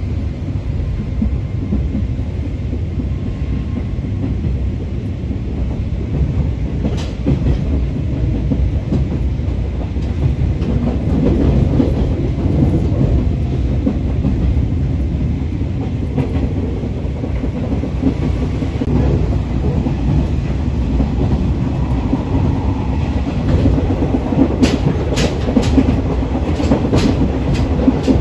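Train carriage running along the track, heard from inside the carriage: a steady low rumble, with several sharp clacks near the end as the wheels run over rail joints.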